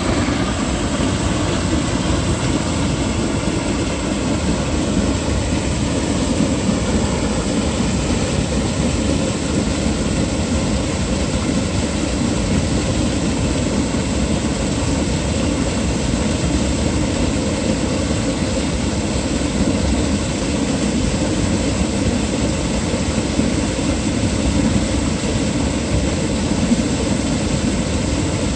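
Turbulent water rushing steadily through a small irrigation channel, a constant roar with no pauses.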